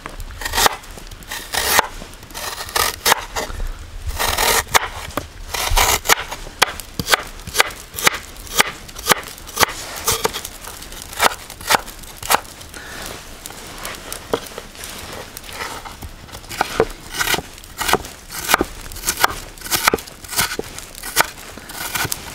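Chef's knife chopping fresh ginger on a wooden cutting board: a run of sharp knocks of the blade against the board, about two or three a second, as the ginger is sliced, cut into strips and minced.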